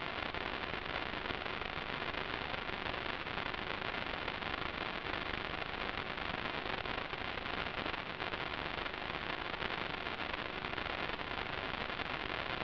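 Steady, even hiss of static with no change in level and no engine or propeller tone in it, typical of the audio channel of an analog FPV video receiver recording.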